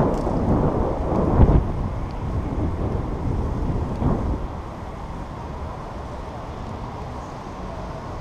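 Wind buffeting the microphone of a camera on a moving bicycle: a low, rumbling roar of noise that eases off about halfway through.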